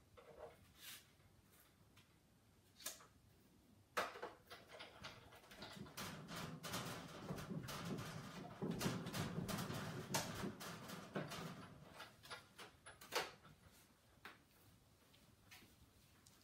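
Hand-cranked die-cutting machine: a few clicks and knocks as the die and paper are set in, then about six seconds of creaking and grinding with clicks as the sandwich is turned through the rollers, tailing off into light knocks.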